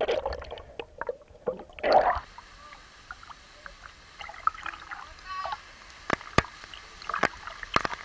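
Water sloshing and gurgling around an action camera on a pole as it dips underwater and comes back up beside a swimmer, with two louder surges in the first two seconds. After that come quieter gurgles and splashes and a few sharp clicks.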